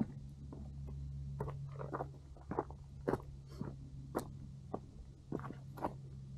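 Footsteps crunching on a dry, rocky dirt trail, walking downhill about two steps a second, over a low steady hum.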